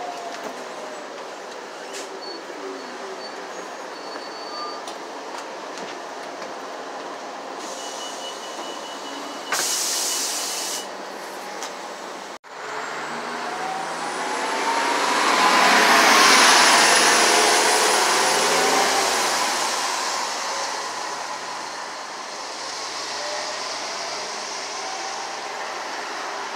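Transit bus interior rumble while riding, with a loud burst of air hiss about ten seconds in. Then a transit bus pulls away past the microphone: its engine and drivetrain whine swells, peaks a few seconds later and fades.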